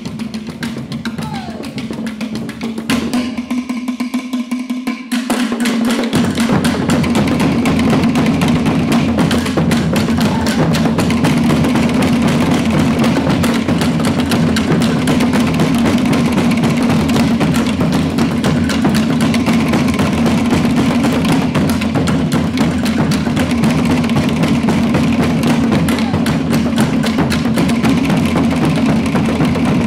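Tahitian drum ensemble playing: to'ere slit drums rattling a fast, dense rhythm over the deeper pahu drums. It starts lighter and the full ensemble comes in loud about six seconds in, then keeps up an even, driving beat.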